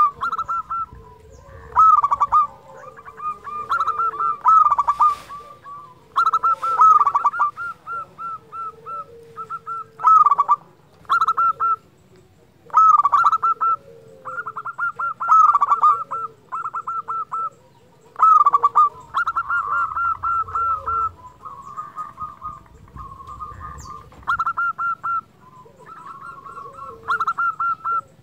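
Zebra dove (perkutut) singing: short phrases of quick, rippling coos, repeated every two to three seconds.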